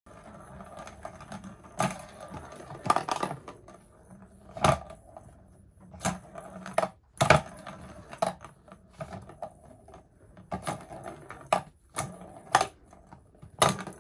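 Sharp, irregular plastic clicks and clatters from a plastic circuit-track cat toy being knocked about on a wooden deck, about one every second, with a couple of short rattling runs.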